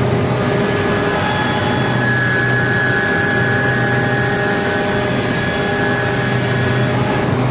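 Excavator's diesel engine running steadily, heard up close in the engine compartment, loud, with a thin, steady high whine over the engine noise.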